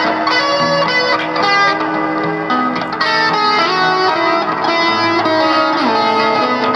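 Guitar music, likely electric guitar: a run of held notes changing every half second or so, with a note sliding down in pitch about six seconds in.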